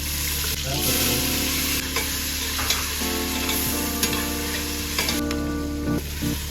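Food frying in a pan: a steady sizzle, with a few light knocks of a utensil against the pan.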